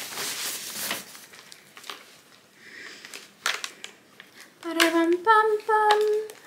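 Cloth rustling and a few light clicks as a riding helmet is worked out of its black fabric bag. Near the end, a woman's voice hums or sings three held notes, the first low and the next two higher, like a little fanfare.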